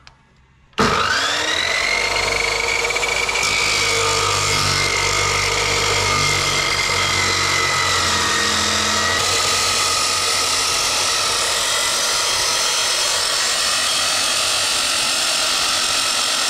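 Ozito abrasive chop saw starting up with a rising whine about a second in, then running steadily as its disc cuts through steel hollow-section tube.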